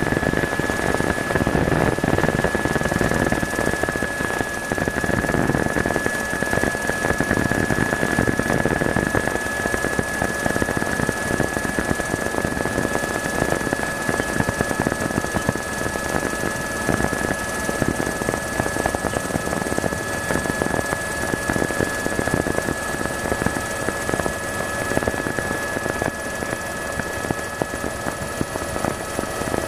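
Tour helicopter's engine and rotor noise heard inside the cabin: a steady, rapid rotor chop under a constant high whine.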